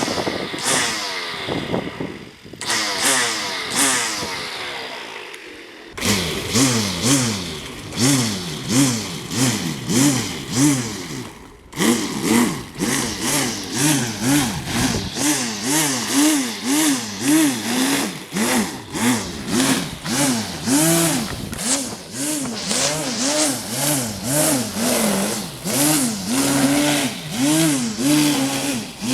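Corded electric string trimmer running and cutting long grass. Its motor pitch rises and falls over and over as the line bites into the grass. It stops twice, once a few seconds in and briefly about twelve seconds in, then runs on.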